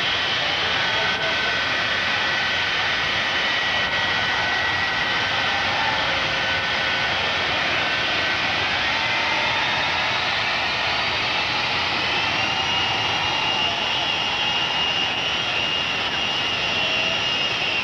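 The Shockwave jet truck's three J34 jet engines running at the start line: a steady, loud rush with a high whine. The whine climbs in pitch about ten seconds in as the engines are brought up, then holds.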